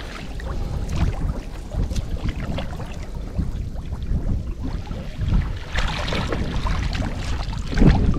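Water sloshing and splashing around a person wading in deep water, irregular, with a louder splash near the end, mixed with wind on the microphone.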